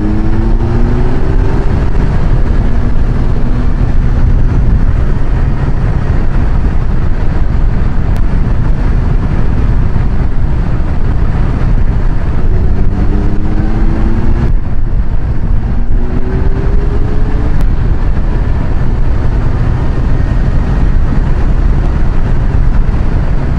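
Kawasaki Versys 1000 inline-four engine pulling under acceleration on the open road, over a steady rush of wind and road noise on a helmet-mounted microphone. Its note climbs at the start and climbs twice more about halfway through, with a brief dip in between.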